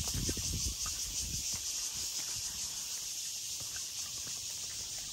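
Steady high chirring of insects in the surrounding woods, with a few low thuds of footsteps on the stone path in about the first second.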